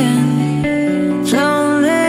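Background music: a song with a sung melody over guitar.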